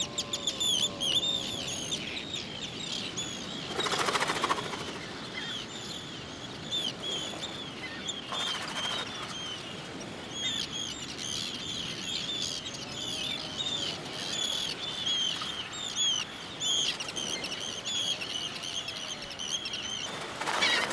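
Seabird colony calling: a dense, continuous chorus of short, high chirping calls, with a few fainter low calls and three brief rushes of noise, about four seconds in, about eight seconds in and near the end.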